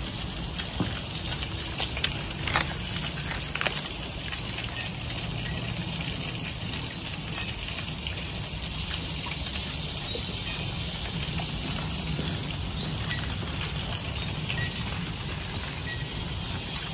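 Steady outdoor background noise: an even hiss with a low rumble underneath, and a few faint clicks in the first few seconds.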